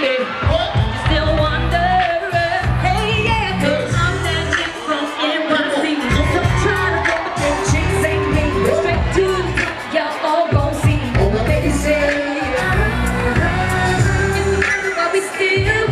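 Live pop music with a singing voice, played loud over a concert sound system with a heavy bass beat, heard from among the audience.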